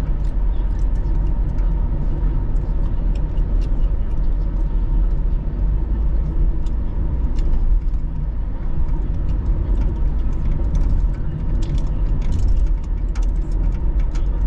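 Steady low rumble of engine and tyre road noise inside a car cruising at about 65 km/h, with scattered faint ticks.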